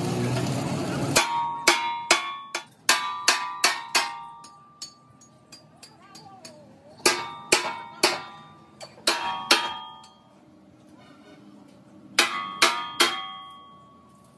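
Hammer blows on the steel tractor front blade, in three bursts of several strikes each, every strike ringing metallically, with short pauses between the bursts. A rush of noise fills the first second.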